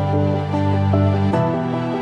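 Background music: soft instrumental with sustained chords and a bass line, the chords changing about every second and a half.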